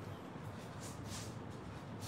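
Faint room tone with a few soft rustles of handling noise.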